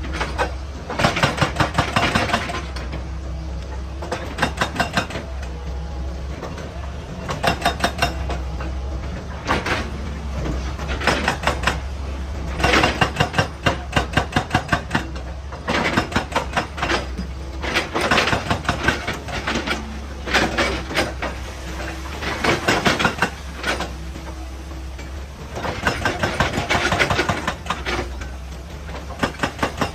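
Excavator-mounted hydraulic rock breaker hammering rock in repeated bursts of rapid blows, each burst lasting one to three seconds, over the excavator's steady diesel engine drone.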